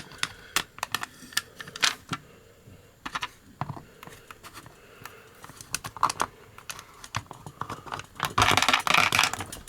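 Hard plastic clicks, taps and light rattles as an action figure is handled and pressed onto the pegs of its plastic display base, with a louder rubbing scrape about a second long near the end.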